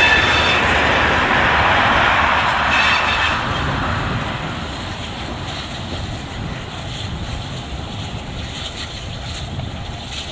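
Steam train of passenger coaches behind a Württemberg T3 locomotive running past on a curve, its wheels squealing briefly near the start and again about three seconds in, then its running noise fading steadily as it draws away.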